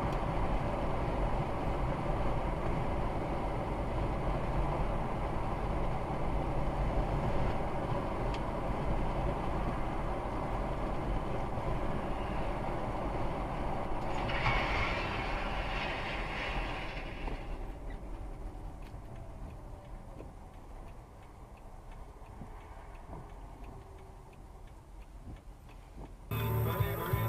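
In-cabin road and engine noise of a car at about 50 mph, a steady rumble that fades as the car brakes almost to a stop. About halfway through, a brief hiss rises and falls over roughly three seconds. Music comes in just before the end.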